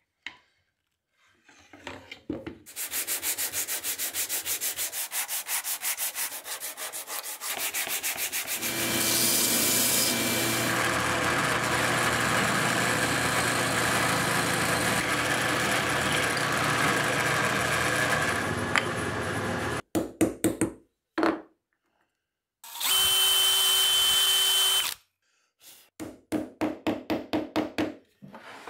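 Drill press boring into a wooden clamp block, running steadily for about ten seconds in the middle. It follows a fast, even rasping rhythm, and short bursts of power-tool work come near the end.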